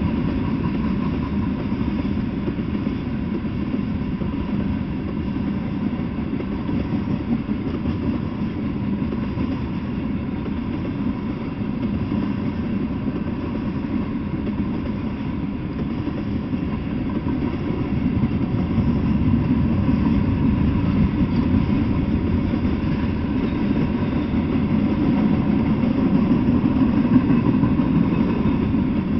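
Freight train of tank cars and boxcars rolling past, a steady rumble of steel wheels on the rails that grows a little louder later on.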